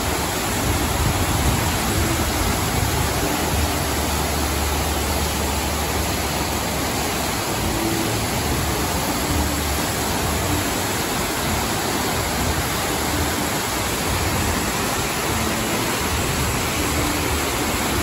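Artificial waterfall cascading down a tiered rock wall into a pool: a steady rush of falling water.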